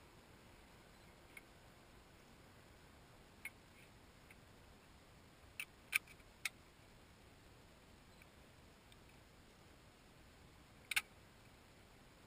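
Scattered sharp clicks and light knocks from parts of the nano trike's frame and wing being handled during assembly: three in quick succession about halfway through and the loudest near the end, over faint background hiss.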